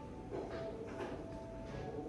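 Soft background music with a few long held notes.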